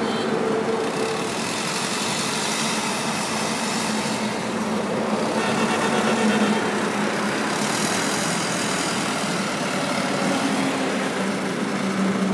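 Wheel loader's diesel engine running steadily as it works, with a low hum that swells around the middle and again near the end as the machine lifts its bucket of sand.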